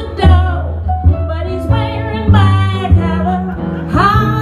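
Live jazz: a woman singing a blues number into a microphone, accompanied by plucked upright bass and hollow-body archtop guitar.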